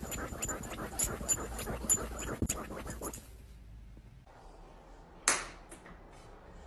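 Small dog digging at a fabric couch cushion with its front paws, a rapid rasping scratch of claws on upholstery that stops after about three seconds. Near the end there is a single sharp knock.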